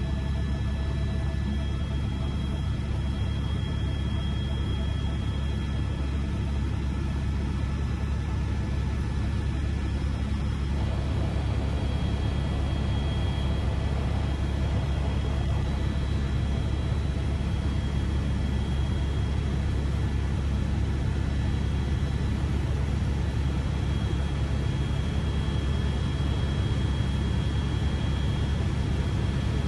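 Helicopter cabin noise in flight: a steady, loud low rumble from the engine and rotor, with a faint high whine over it.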